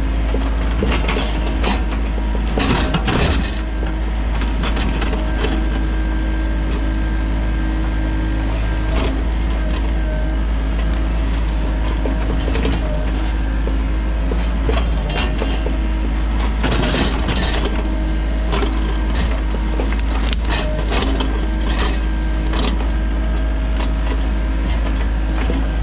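Sany mini excavator's diesel engine running steadily under work, with repeated knocks, clanks and creaks of the machine's metal parts.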